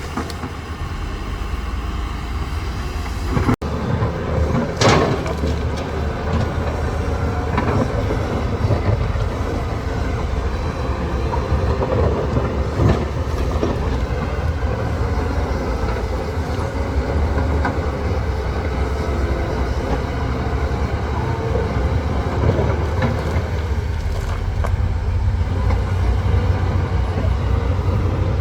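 Heavy construction machinery's diesel engine running steadily under load, with occasional metallic clanks and rattles.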